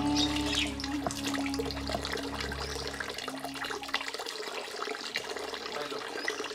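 Water poured from a plastic mug over a person's head, splashing and trickling down onto a concrete floor while a hand rubs the wet hair.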